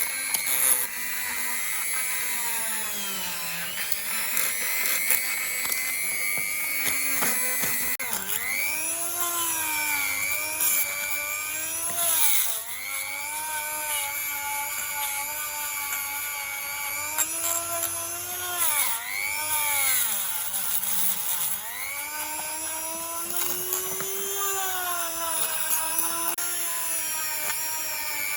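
Electric power tool motor whining, its pitch dropping several times as it bogs under load against the workpiece and then rising again, with scraping noise from the tool's contact.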